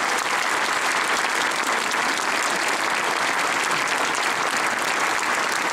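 A large indoor crowd applauding steadily: many hands clapping at once.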